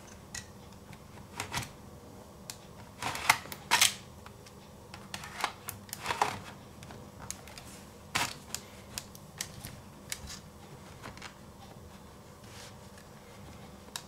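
Scattered clicks, taps and short scrapes of plastic and metal parts being handled on an opened Lenovo Z50 laptop chassis and a hard-drive caddy going into its DVD bay, loudest in a cluster a few seconds in and again around the middle.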